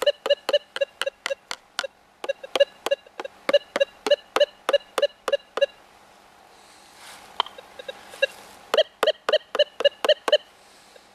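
Minelab Gold Monster 1000 metal detector giving short, rapid target beeps, about three to four a second, in two runs with a pause between them. The beeps come while a metal digging scoop is held close over the search coil.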